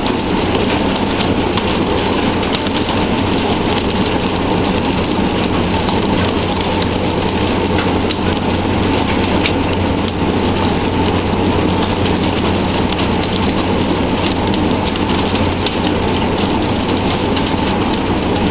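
Steady hiss of spraying and rushing seawater along the side of a pole-and-line tuna fishing boat, over the low hum of the boat's engine, with many small scattered clicks and knocks.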